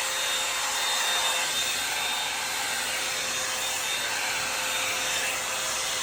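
Revlon One-Step Volumiser hot-air brush running steadily: a constant rush of blown air with a thin, steady motor whine.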